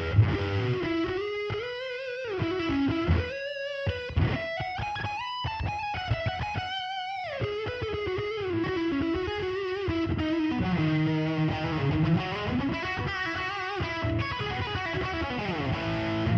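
Electric guitar played through an amplifier's 10-inch speaker: a single-note lead line with sustained notes, slow string bends up and down and wavering vibrato.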